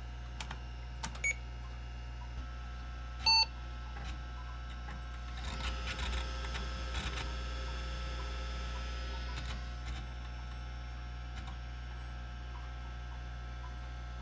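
A few clicks, then one short beep from an IBM AT's PC speaker about three seconds in, the power-on self-test passing as the machine restarts. From about five and a half seconds in, for some four seconds, the MiniScribe 6053 MFM hard drive chatters with head seeks as the computer boots from it, over the steady hum of the fan and spinning drive.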